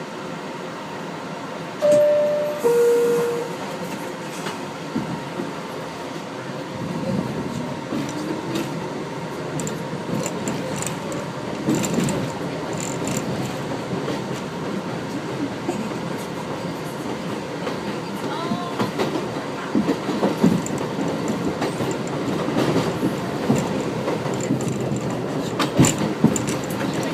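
New York City subway train: a two-note falling door chime about two seconds in, then the train pulling away, its motors rising in a whine and the wheels clattering over the rails.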